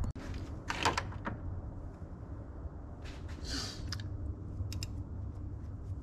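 Light clicks and a short scrape of a spark plug socket and extension being handled while new plugs are threaded in by hand, over a steady low hum.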